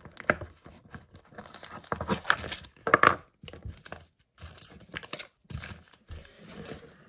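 Small collectible toy packaging being crinkled and torn open by hand: irregular crackling with a louder tearing burst about three seconds in.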